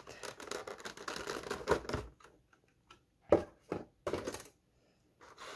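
Stiff clear plastic packaging being pulled off a hard plastic tray: a crackling, crinkling stretch for about two seconds, then a few separate sharp clicks and snaps.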